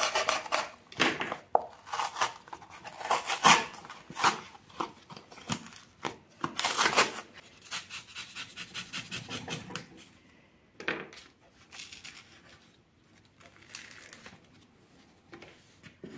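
Small kitchen knife cutting and scraping through a cardboard milk carton while the carton is torn and peeled back, in a run of short rasping strokes. After about ten seconds it goes quieter, with a few light knocks.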